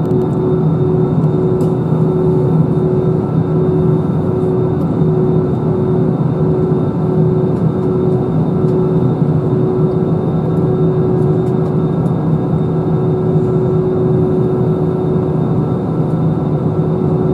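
Cabin noise of an Airbus A320-214 taxiing, heard over the wing: its CFM56 engines running at low taxi power as a steady drone, with a steady hum.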